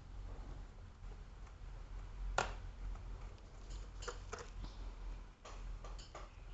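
Scattered sharp clicks and taps of a laptop's plastic casing and small parts being handled during reassembly, the loudest about two and a half seconds in and a few more in quick pairs near the end, over a low steady hum.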